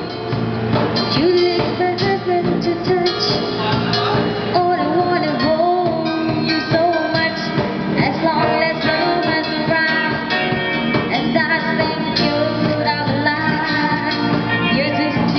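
Live street band playing a Western pop song through amplifiers: a lead singer's voice over electric guitar, bass and a drum kit.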